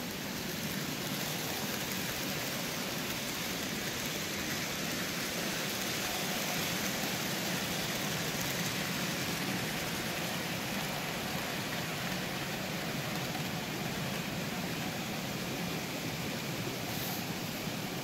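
Steady, even hiss of background noise, a little louder in the middle.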